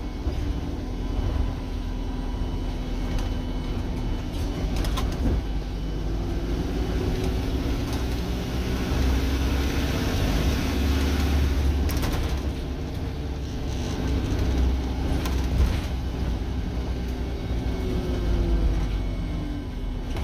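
Double-decker bus running, heard from inside on the upper deck: a steady low engine and road rumble with a drive whine that rises and falls in pitch as the bus pulls away and slows, and a few light rattles from the body.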